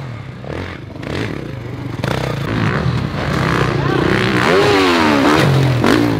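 Dirt bike engines running, louder over the second half, with a falling pitch sweep about four and a half seconds in.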